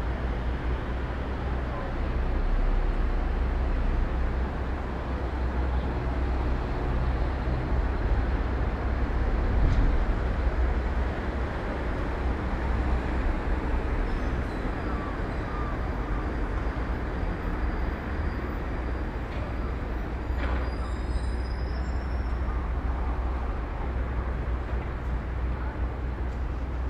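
Steady city street ambience: a continuous deep rumble of road traffic.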